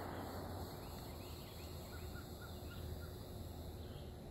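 Quiet outdoor ambience with a steady low hum. A small bird gives a quick series of about five faint chirps about one and a half seconds in, with a few other faint bird calls around it.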